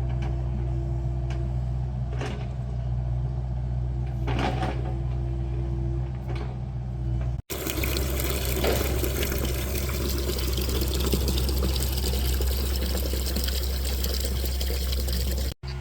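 Mini excavator's engine running with a steady low hum and a few light clicks. About halfway through, after a cut, a loud even rushing noise sets in over the engine hum.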